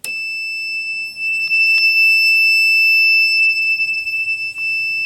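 A 4.5-volt piezo sounder on a homemade fire alarm panel starts suddenly and gives one continuous, ear-piercing high tone without pulsing: the panel in alarm with its coding set to continuous.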